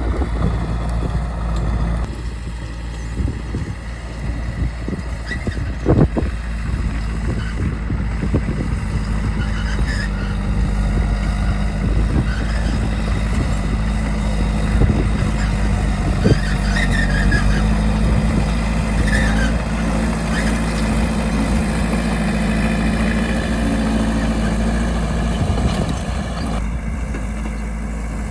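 Bulldozer's diesel engine running steadily under load, with a few sharp knocks, about six seconds in and again about sixteen seconds in.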